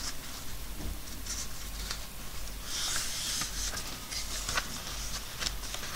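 A sheet of paper being handled and folded on a tabletop: soft rustling and sliding, with a short rubbing hiss about three seconds in and scattered light taps.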